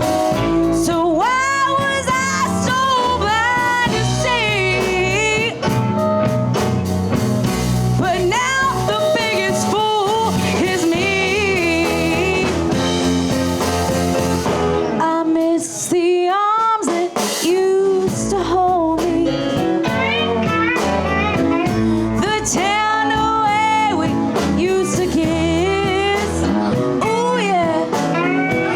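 Live blues band playing: drums, bass and keys under a lead line of bending, wavering notes, with a short break about halfway through before the band comes back in.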